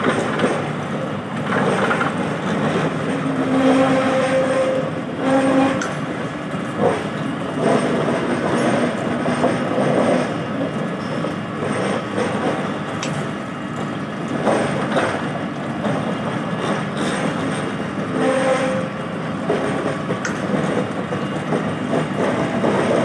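Ring-gear lathe cutting the steel breech nut of an HP steam turbine module: a steady rattle of the gear drive and the tool working the metal. A held humming tone comes in twice, a few seconds in and again near the end.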